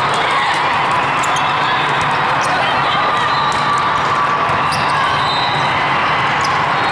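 Steady din of a busy sports hall during volleyball play: many voices in the crowd, with volleyballs bouncing and being struck.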